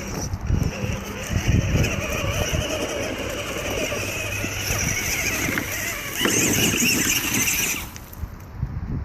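Dual Novak Terra Claw 55-turn brushed electric motors of a Maxstone5 RC rock crawler, with their gearing, whining steadily under throttle. The whine cuts off suddenly near the end.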